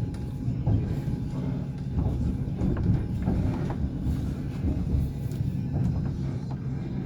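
Passenger train wheels clattering over the rail joints as the train runs along, with a steady low rumble and irregular sharp knocks.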